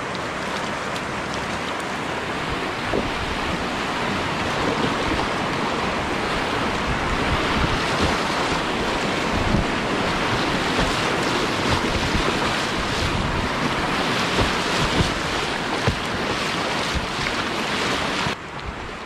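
Rushing whitewater of a river rapid at high water, a steady loud rush with scattered sharper splashes. It drops suddenly to a quieter rush near the end.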